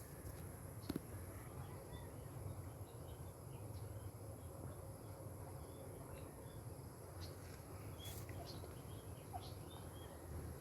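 Faint outdoor ambience: small birds give scattered short high chirps over a steady low rumble. A single brief click comes about a second in.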